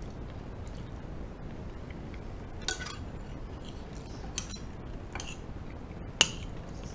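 Metal spoon clinking and scraping against a ceramic plate four times, the last one the loudest, as curry is scooped up.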